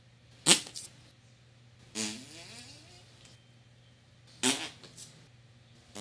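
Fart sound effects, three in turn with short pauses between: a short sharp one about half a second in, a longer pitched one about two seconds in that bends in pitch for about a second, and a short one with a few quick follow-ups near the end.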